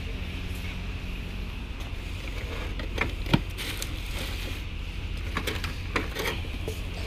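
Hands rummaging through a cardboard box of vacuum cleaner parts and lifting a vacuum hose and plastic wand: scattered clicks and knocks, the sharpest a little before halfway, over a steady low hum.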